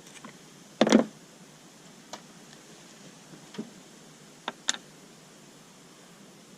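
Metal parts and tools being handled while taking apart a diesel injection pump: a short clatter about a second in, then several light clicks.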